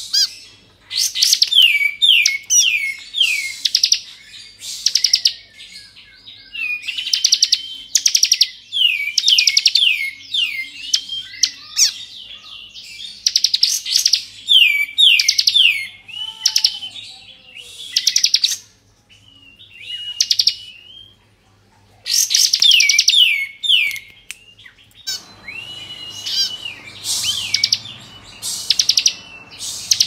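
Bar-winged prinia (ciblek kristal) singing its full 'ngebren' song: repeated phrases of a second or two, each a fast rattling trill mixed with quick falling notes, with short pauses between them. A steady background hiss joins near the end.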